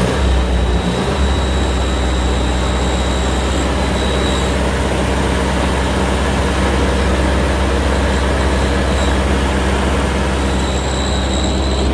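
1956 Massey Ferguson TO35 tractor engine running steadily with a tapping that the owner blames on valves that still need setting; he calls it a terrible sound.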